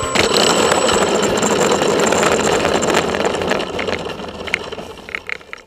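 Steady rushing rumble picked up by the onboard camera of a GWS Slow Stick RC plane moving along just above the asphalt, with a faint high whine. It fades out over the last two seconds.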